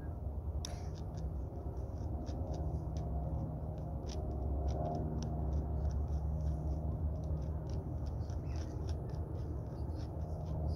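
Short dabbing and scraping strokes of a painting tool on a stretched canvas, heard as a quick, irregular run of small scratchy ticks over a steady low rumble.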